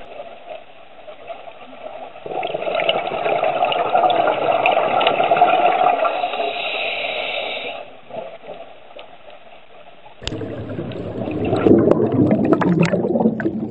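Underwater rushing and bubbling of scuba divers' exhaled air streaming out of their regulators. It swells about two seconds in and eases near eight seconds. After a cut about ten seconds in it becomes a dense, close bubbling with many small clicks.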